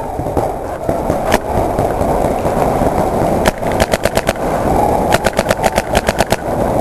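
Paintball markers firing: a single shot about three and a half seconds in, then two rapid strings of shots at about eight to ten a second, over steady background noise.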